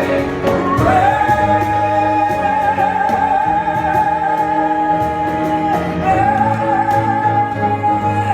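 A singer holding one long high note over musical accompaniment, the closing note of a musical-theatre song. The note slides up into place about a second in and breaks briefly about six seconds in before being held again.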